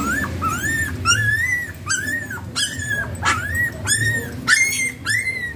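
Puppies crying: a steady run of short, high whines, each rising then falling, about two a second.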